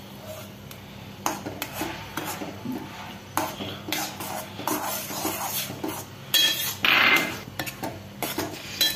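A metal spoon stirring grated coconut into thick sugar syrup in a stainless steel pan, clinking and scraping irregularly against the pan, with a longer, louder scrape about seven seconds in. This is the mixing stage of coconut burfi.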